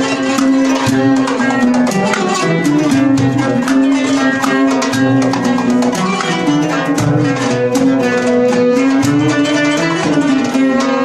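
Small acoustic ensemble playing an instrumental passage: oud plucked, violin carrying held and sliding melody notes, and a hand frame drum beating a steady rhythm.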